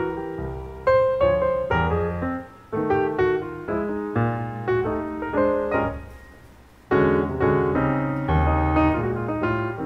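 Background piano music, a melody of struck notes that ring and fade. It dies away around six seconds in, then picks up again a second later.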